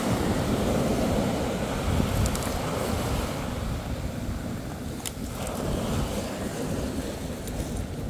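Wind buffeting the microphone over waves washing onto a shingle beach, a steady rushing noise with a deep rumble, broken by a few small clicks.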